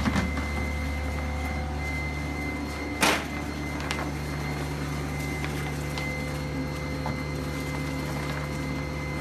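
Steady low machine hum with a faint high whine, and a single loud sharp clack about three seconds in, plus a few faint clicks.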